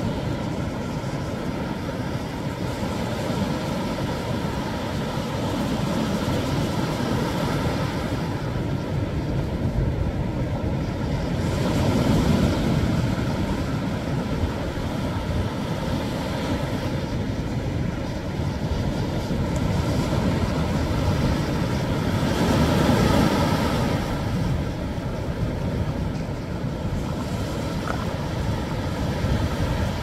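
Sea surf breaking over offshore rocks: a steady rushing wash of waves, swelling louder about 12 seconds in and again about 23 seconds in.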